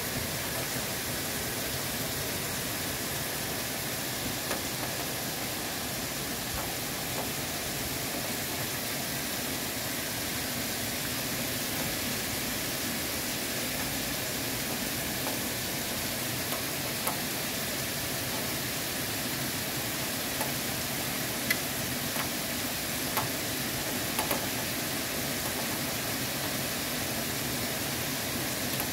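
Heavy rain falling steadily on pavements, roofs and parked cars, an even hiss, with a few sharp drip ticks in the second half.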